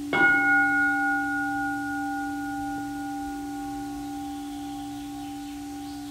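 A singing bowl struck once just after the start, its ring fading slowly with a gentle wavering, over the lingering low hum of an earlier strike.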